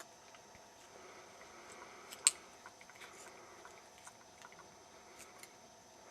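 Thin beer-can aluminium shim being curled into shape by hand: faint scattered crinkles and small clicks, with one sharp click about two seconds in.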